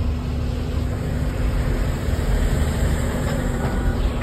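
Truck engine and road noise heard from inside the cab while driving: a steady low rumble with a faint steady hum over it.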